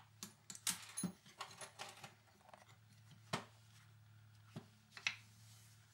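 Bench handling of pliers, short steel pins, a taped knife blade and wooden handle scales on a rubber-matted workbench: a quick run of light clicks and taps, then three sharper single knocks later on.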